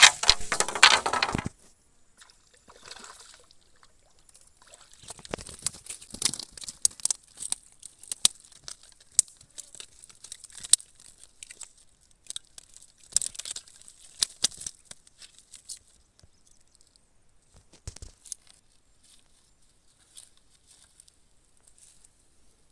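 A loud splash of water, then scattered rustling, crunching and clicking handling noises that die away.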